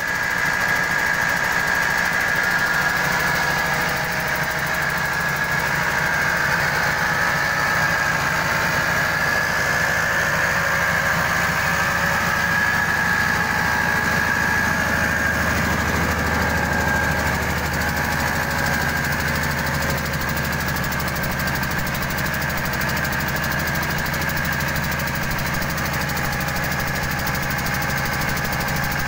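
Diesel engine running steadily with a knocking beat, belt-driving a rice huller, with a steady high-pitched whine over the engine; the sound picks up just as it begins and then holds.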